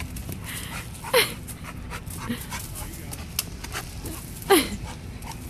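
A dog panting hard as it jumps at and tugs on a tree branch, with scattered clicks of twigs rattling. Two short whines that fall in pitch, one about a second in and a louder one near the end.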